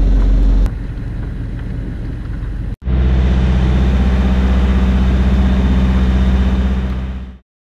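A fishing boat's engine running steadily, a loud low drone; the sound drops in level about a second in, breaks off sharply and returns, then fades out near the end.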